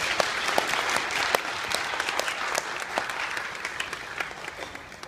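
A crowd of people applauding, many hands clapping at once; the clapping is loudest in the first couple of seconds and dies away near the end.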